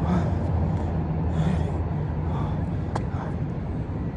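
A man breathing hard and out of breath from a burpee and squat workout, with four heavy breaths in a few seconds and a sharp click about three seconds in, over a steady low rumble.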